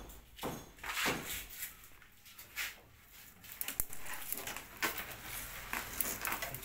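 Electrical wires rustling and scraping in irregular bursts as a bundle of them is pulled and bunched by hand at a ceiling fan point, with small clicks in between.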